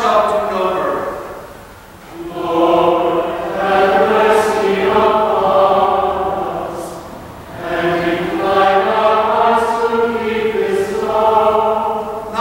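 Choir and congregation singing the response to a commandment in the Decalogue, in plainsong style. The end of one phrase is followed by a short pause, then two long phrases.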